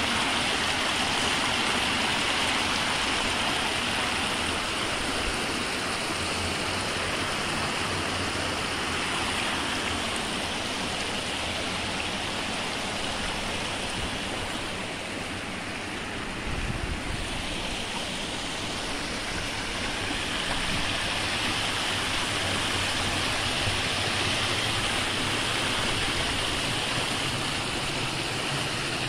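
Shallow river water spilling over the lip of a low concrete weir and splashing onto rocks below: a steady rushing that softens briefly just past the middle.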